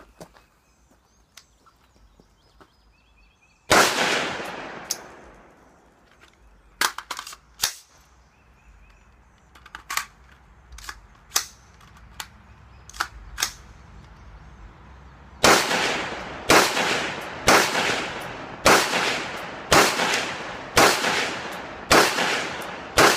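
AR-15 rifle firing. One shot comes about four seconds in and trails off in a long echo. A stretch of quieter sharp cracks and clicks follows, then near the end a steady string of about eight shots roughly a second apart, each with its echo.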